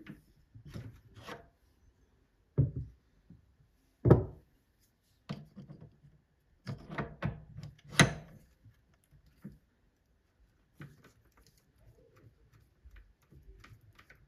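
Tool post and compound slide of a Paulimot PM190-V mini lathe being adjusted by hand, with the lathe not running. Irregular metal clicks, knocks and scrapes, the loudest three around 3, 4 and 8 seconds in, then lighter ticking near the end.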